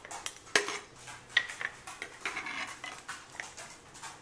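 Metal ladle clinking against a stainless steel mixing bowl and a glass mason jar as a milky jelly dessert is scooped and poured over ice. There are several sharp clinks, with wet pouring and splashing in between.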